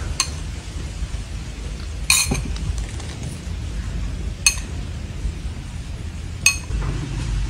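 Bright, ringing clinks, four times about two seconds apart, over a steady low rumble.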